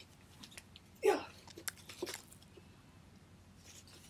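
Protective packaging wrap being pulled and worked off a laptop by hand: sporadic rustles and crackles, loudest about a second in.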